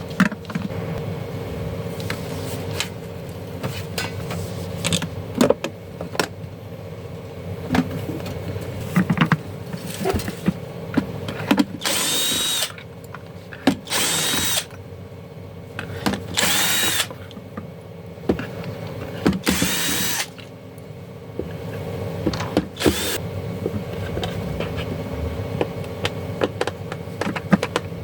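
Electric screwdriver whirring in five short bursts of under a second each, its motor whine rising and falling in pitch, opening the casing of a garment steamer. Small clicks of parts being handled come between the bursts.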